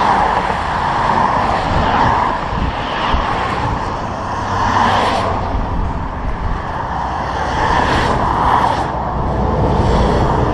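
Highway traffic passing close by: a continuous rush of tyres and engines that swells and eases every couple of seconds as vehicles go past.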